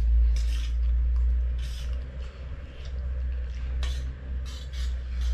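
People eating noodles from steel plates: several short slurping and chewing noises and a sharp clink of cutlery on a plate about four seconds in, over a steady low hum.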